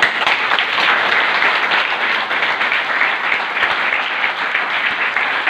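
Applause from a roomful of students, many hands clapping at once, breaking out suddenly and holding steady.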